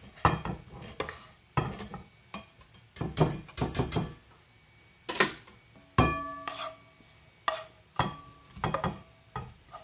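Wooden spoon knocking and scraping against a glass mixing bowl and pan as cooked chicken pieces are spooned into a runny egg filling: a string of irregular sharp knocks, some ringing briefly.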